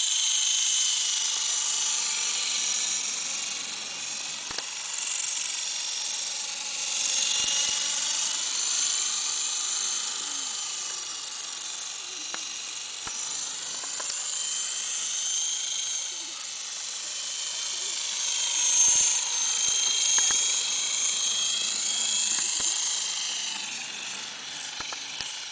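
Radio-controlled model helicopter in flight: a high-pitched motor and rotor whine that keeps rising and falling in pitch and loudness as it manoeuvres.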